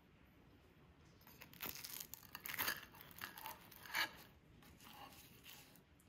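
Knife and fork cutting through a crisp croffle, a waffle-pressed croissant: the flaky pastry crackles and crunches in a run of short bursts, the sharpest about four seconds in.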